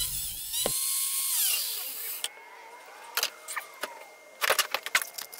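Angle grinder with a cutoff wheel coasting down after being switched off, its whine falling in pitch and dying away about two seconds in. A few sharp clicks and knocks follow.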